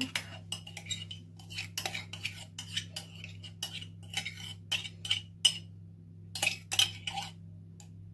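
A metal spoon scraping and clinking against the inside of a ceramic mug in quick, irregular strokes, scraping the yeast mixture out into the flour.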